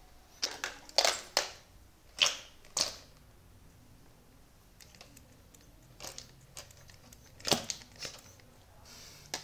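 Short squeezes and clicks from a Rex Pum Pum toy dachshund being worked: its rubber pump bulb is squeezed and the plastic dog handled as play dough is pushed out of its rear. The sounds come in two bunches, a handful in the first three seconds and more between about six and eight seconds.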